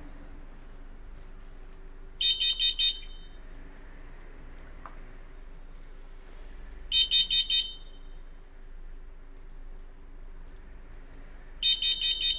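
Carbon monoxide alarm going off: groups of four quick, high-pitched beeps, repeated three times about every five seconds.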